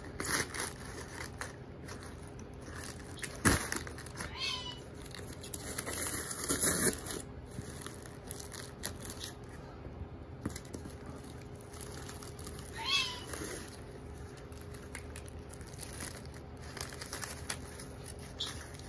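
Rustling and crinkling of packing paper and plastic wrap being handled and pulled out of a cardboard box, with a sharp knock a few seconds in. Two short high calls are heard, one early and one in the second half.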